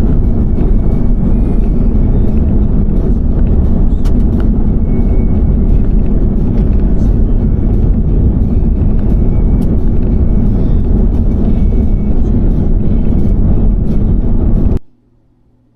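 Third-generation Toyota Tacoma driving, a loud steady rumble of engine and road noise. It cuts off abruptly near the end.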